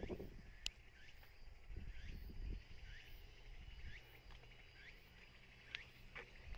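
Faint outdoor ambience: a short rising chirp repeats about once a second over a faint steady high-pitched drone, with a brief low rumble about two seconds in.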